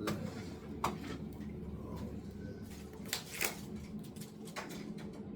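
A few sharp clicks and short scrapes of a utensil against a baking tray, with a longer scrape about three seconds in.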